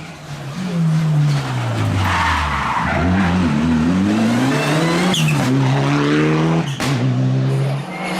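Rally car engine dropping in pitch as the car slows, then revving up again through several quick gear changes and holding steady near the end.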